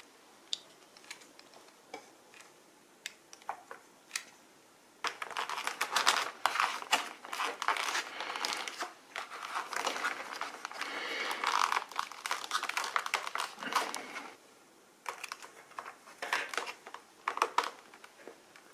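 Hands working a plastic motor mount and wires into a foam model-plane fuselage. First a few small clicks, then from about five seconds in a long stretch of rustling, crinkling and scraping of foam and plastic, and a few more light clicks near the end.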